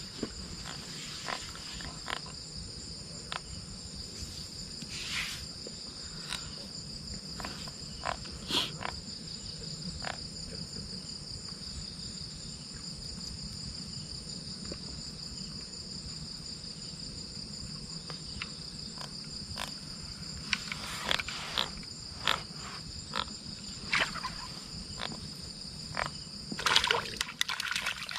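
A steady, high-pitched chorus of night insects, crickets chirring, with scattered short clicks and knocks that come more often near the end.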